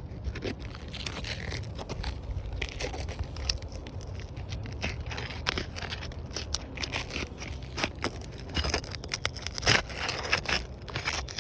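Roof snake, a metal shingle-unsealing bar, scraping and prying under asphalt shingle tabs, with irregular scrapes and crackles as the adhesive seal strips tear loose. A steady low rumble runs underneath.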